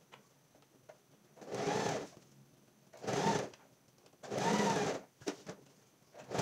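Electric domestic sewing machine stitching bias tape onto a cotton dish towel in short runs: three bursts of under a second each, the first about a second and a half in, with quiet pauses between them, and a fourth starting at the very end.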